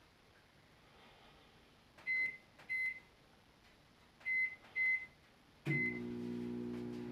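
Microwave oven keypad beeping five times as the cooking time is entered, then the oven starting up near the end with a steady low hum.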